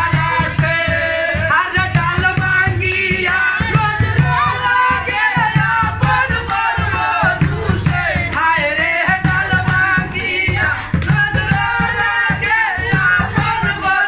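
A man singing a Bengali song at full voice, accompanied by steady hand-drumming on an upturned plastic container used as a drum.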